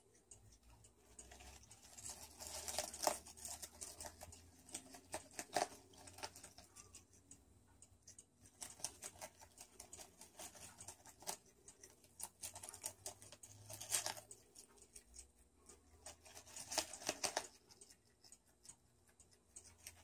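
A groundhog biting and chewing crisp leaf lettuce: quick crunching clicks that come in bouts of a second or two, with short pauses between.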